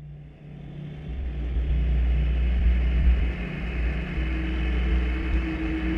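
Electronic industrial-ambient drone fading in over the first couple of seconds: a deep rumble under a steady low hum, joined about four seconds in by a higher held tone.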